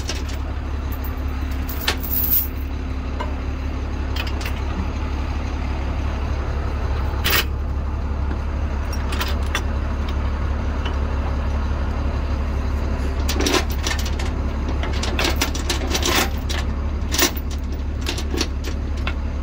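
Tow truck engine idling steadily as a low drone, with heavy steel tow chains clanking and rattling several times as they are lifted and laid on the truck bed, most often in the second half.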